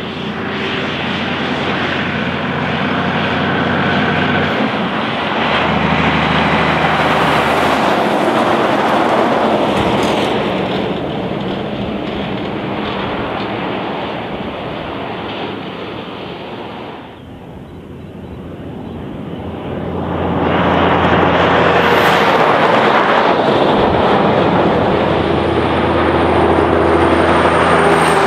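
Heavy diesel road-train trucks. First a distant prime mover's engine pulls steadily, its note stepping with gear changes. After a lull about 17 seconds in, a multi-trailer tanker road train passes close, loud with engine and tyre noise.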